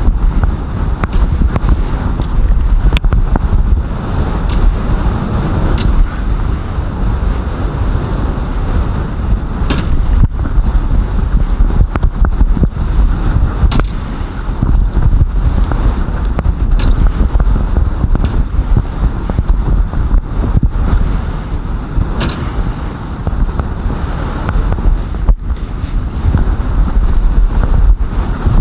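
Motorboat pounding through storm waves: heavy wind buffets the microphone over a steady low rumble, with the hull now and then slapping hard on a wave and spray splashing over the bow.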